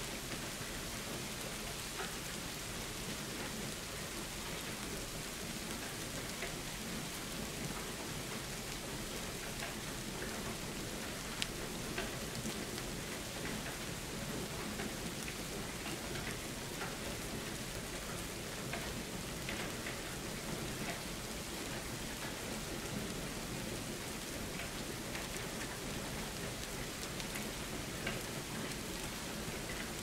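Steady rain falling, an even hiss with scattered sharper drop ticks, one of them louder about eleven seconds in.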